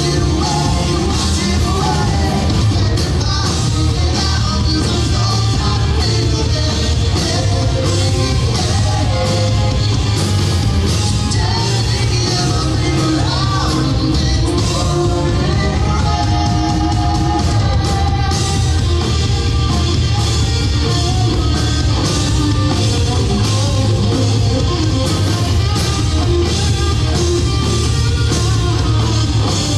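A live rock band playing: electric guitars, bass and drums, with a male lead singer.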